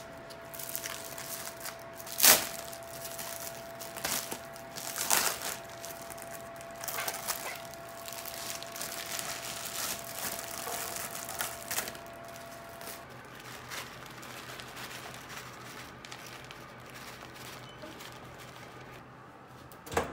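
Plastic wrapper crinkling as a frozen pizza is handled and the wrap is pulled off it over a serving tray, in irregular rustles, with a sharp knock about two seconds in. A short clunk near the end as a built-in oven door is pulled open.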